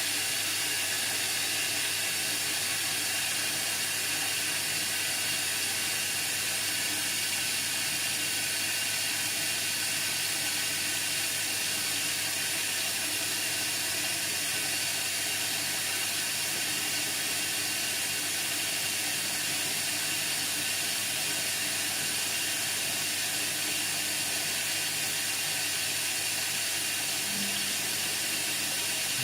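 Indesit MTWC71252WUK washing machine filling with water, a steady hiss of water running into the drum over a low hum.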